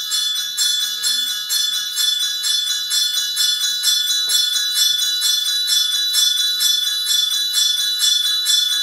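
Hand-held ritual bell rung steadily, re-struck about twice a second so that its bright ringing never dies away.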